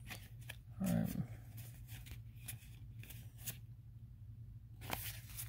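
Yu-Gi-Oh trading cards being sorted and flicked through by hand: quiet, scattered clicks and slaps of card against card, with a louder rustle near the end.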